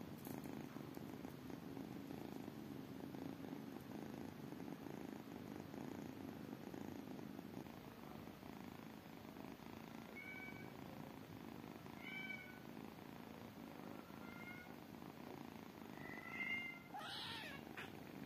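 Kitten purring, a steady low rumble. From about halfway through come a few short faint high calls, and about a second before the end a louder brief call with a falling pitch.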